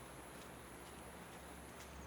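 Faint, steady hiss of flowing river water, with a thin, high, steady tone over it that stops near the end.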